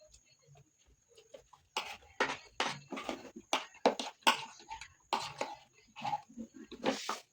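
Close-miked eating sounds: a mouthful of rice and bean stew being chewed with irregular smacks, starting about two seconds in.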